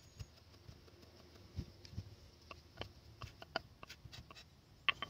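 Cleaver mincing garlic on a round wooden chopping block: a couple of dull knocks, then a run of light, sharp blade taps, with one sharper clack near the end.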